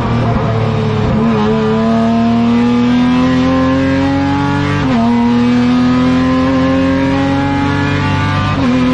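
Race car engine heard from inside the cockpit under full throttle, its pitch climbing steadily, dropping sharply at an upshift about five seconds in, climbing again and dropping at another shift near the end.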